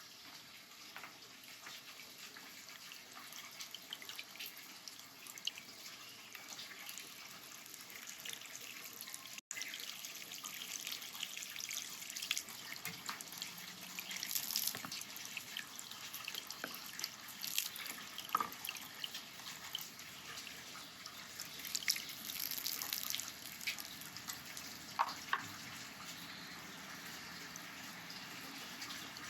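Water running and splashing steadily, with many small sharp drips and splashes over an even hiss. It briefly cuts out about nine seconds in.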